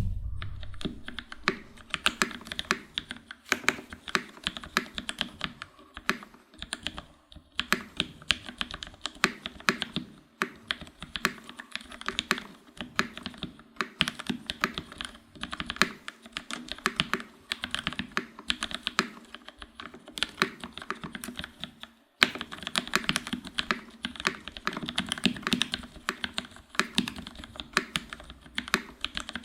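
Continuous typing on an ALF X1.1 custom mechanical keyboard with a carbon fiber plate, lubed TTC Gold Pink linear switches and GMK keycaps: a fast, steady run of keystrokes, with a brief pause about three-quarters of the way through.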